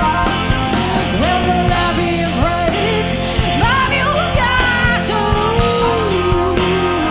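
Live blues-rock band playing a heavy, slow groove on drums, electric guitar and bass, with a harmonica and a singer's voice wailing in bending, gliding lines over it.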